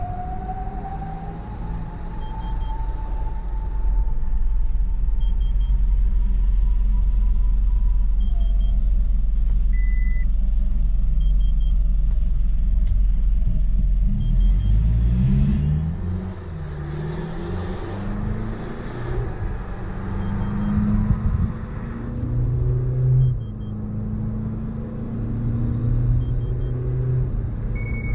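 Inside the cabin of a 2018 Mitsubishi Pajero Sport Dakar 4x4: the turbo-diesel engine runs at low speed with a steady rumble, and a short beep sounds about ten seconds in. From about halfway, the engine revs up hard in a series of rising sweeps as the automatic gearbox shifts up through the gears under full acceleration.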